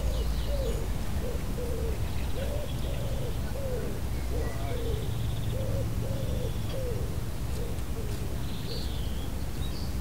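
Wind blowing against a louvered wall vent, a steady low rumble. Over it comes a repeated mid-pitched tone that rises and falls, about twice a second.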